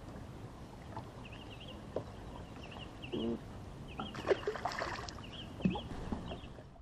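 Quiet lakeside ambience with a small bird chirping repeatedly in short rising-and-falling notes, and a few light knocks and clicks.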